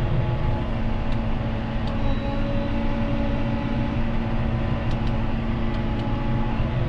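John Deere 6215R tractor's diesel engine running steadily under work, together with the steady running of the Grimme SE 150 it drives. A few faint clicks sound over the drone.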